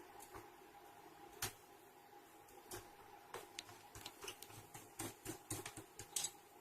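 Irregular light clicks and taps, sparse at first and coming closer together in the second half, over a faint steady hum.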